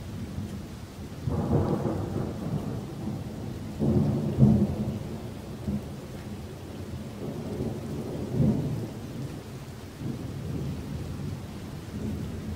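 Thunder rumbling in rolling waves, loudest about four seconds in and swelling again twice later, over a steady hiss of rain.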